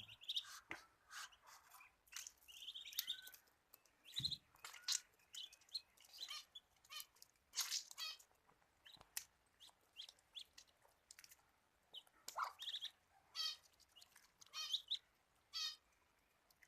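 Muscovy ducklings peeping: many short, high-pitched calls, some with a trilling waver, scattered irregularly throughout, with a few sharp clicks among them.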